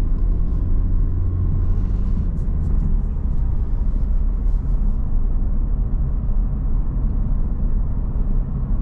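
Honda Civic Type R (FL5) driving, heard from inside the cabin: a steady low rumble of engine and road noise.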